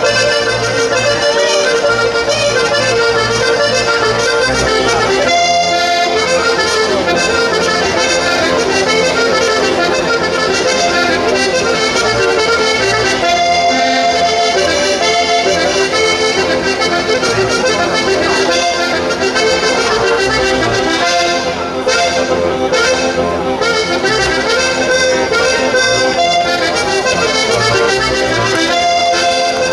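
Accordion playing a Sardinian ballo sardo dance tune without a break, over a steady, repeating bass beat.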